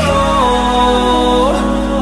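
Background pop song with one long held note in the melody that changes about a second and a half in, over a steady bass.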